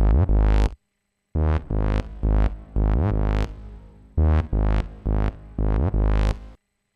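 Serum software synthesizer playing a looped phrase of short, punchy notes with a heavy low end, some notes sliding up in pitch. The patch runs through Serum's distortion and dimension effects, with a reverb switched on partway through. The phrase stops dead about a second in and starts again, and stops once more near the end.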